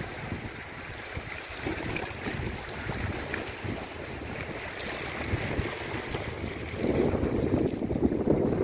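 Wind buffeting the microphone over the steady wash of the sea, with the wind gusting louder about seven seconds in.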